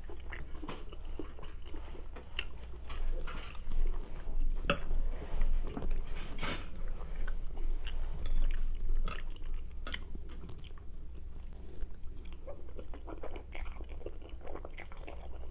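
Close-up mouth sounds of eating spaghetti with a fork: chewing and biting, with irregular sharp clicks and smacks.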